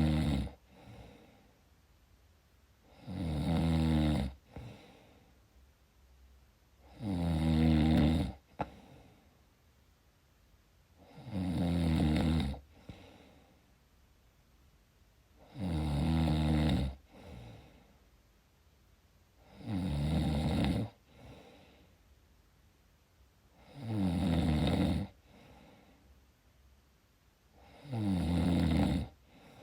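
Snoring in a slow, even rhythm: a loud snore about every four seconds, each about a second long and falling slightly in pitch, followed by a soft breath out.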